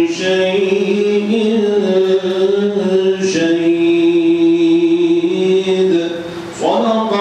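A man's solo Quran recitation in slow, melodic tajweed style, sung in long held notes through a close microphone. There is a short break for breath about three seconds in, and a new phrase slides upward into its first note near the end.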